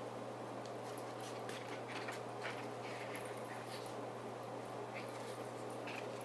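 Latex twisting balloon rubbing and squeaking against the fingers as it is tied off, in short, irregular squeaks.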